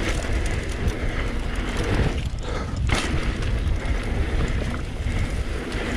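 Mountain bike riding down a dirt singletrack: a steady rumble of wind and tyres on the camera microphone, with the bike rattling and knocking over bumps.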